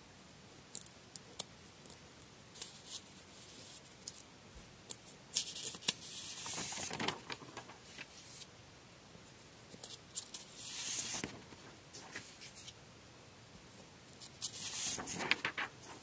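Sheets of drawing paper being handled and turned over: three spells of paper rustling and sliding, with small ticks and taps between them.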